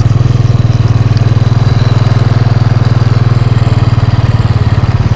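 Motorcycle engine running steadily at low revs, with a rapid, even firing pulse.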